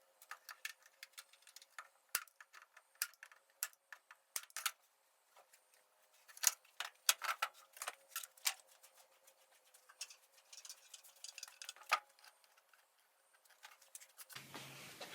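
Irregular light clicks and taps from wooden parts and hand tools being handled during assembly, a few of them sharper knocks, with a soft hiss of something sliding around ten seconds in.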